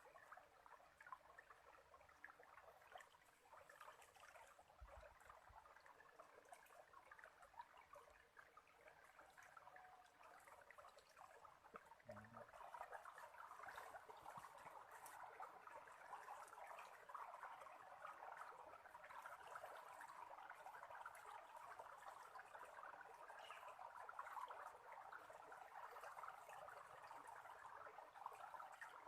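Faint flowing water of a small stream, a steady trickling that grows a little louder about halfway through.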